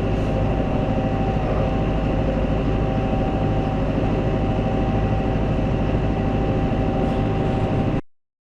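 Farm tractor engine running steadily under way, a low drone with a thin steady whine above it; it cuts off abruptly about eight seconds in.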